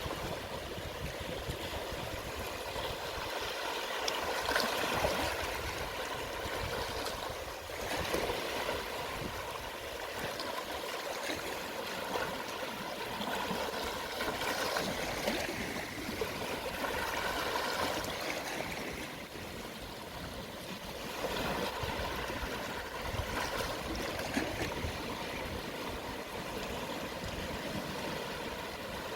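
Small, calm sea waves washing onto the shore at low tide, each swell rising and easing every few seconds over a steady wash of water.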